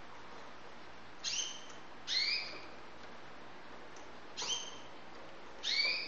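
Canary giving four short call notes a second or two apart, each sweeping quickly up in pitch and then holding.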